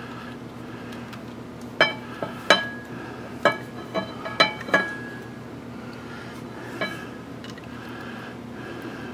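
Small metal parts and tools clinking and being set down: a cluster of about eight sharp, ringing clinks in the first half, then one more near the end, over a steady low hum.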